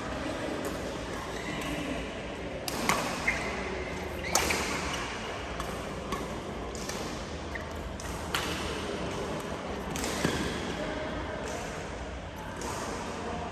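Badminton rally: several sharp racket strikes on a shuttlecock at irregular intervals, over low background voices.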